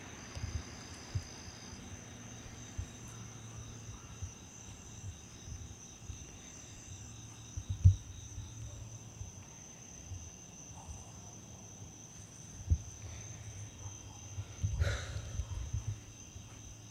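Crickets chirping steadily at night, a high continuous trill with a pulsing chirp beneath it. Scattered low thumps come through from the handheld camera being moved about, the loudest about halfway, with a short louder noise near the end.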